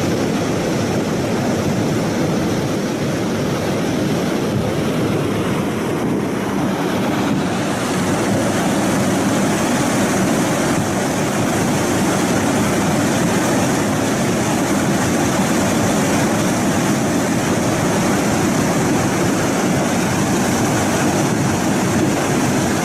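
Steady, loud rushing noise with no rhythm or distinct events; it turns hissier about seven and a half seconds in.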